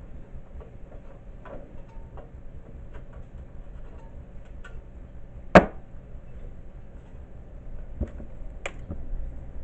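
Scattered light clicks and taps of handling parts and a piece of wire at a small-engine recoil starter, with one sharp, louder knock about five and a half seconds in and two more clicks near the end.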